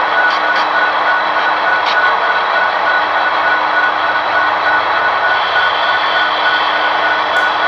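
Diesel locomotive engines running steadily, an even rumbling hum with a constant high tone through it, and a few faint clicks early on.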